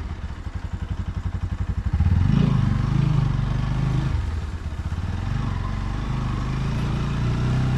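Cold motorcycle engine, still warming up in chilly weather, running with a fast even pulse; about two seconds in it gets louder as it is given throttle and runs on steadily under load.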